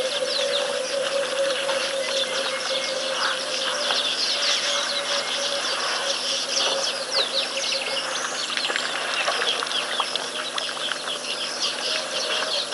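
Dense chorus of many small birds chirping and calling over one another, with a steady hum underneath.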